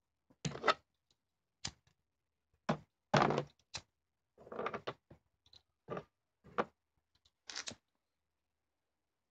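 Irregular clicks and knocks, about nine over seven seconds, from a makeshift lighter torch being handled and worked.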